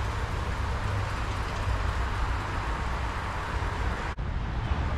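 Steady outdoor ambience: wind rumbling on the microphone under an even hiss, briefly cut off a little after four seconds.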